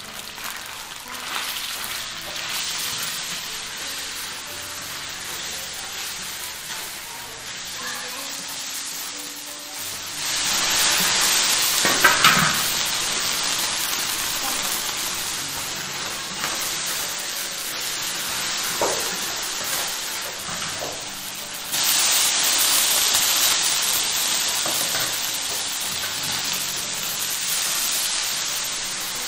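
Chopped meat sizzling in a large iron wok, stirred and scraped with a spatula. The sizzle gets louder about ten seconds in and jumps again about 22 seconds in as more ingredients go into the hot oil, with a few sharp spatula scrapes against the wok around twelve seconds.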